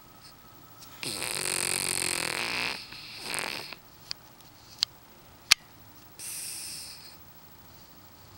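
French bulldog snoring in its sleep: a long pitched snore about a second in, a shorter one right after, and a breathier one near the end. A few sharp clicks come in between.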